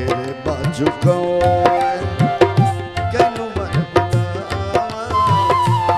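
Tabla played in a steady rhythm of strokes, the bass drum's strokes bending in pitch, under a harmonium melody of held notes.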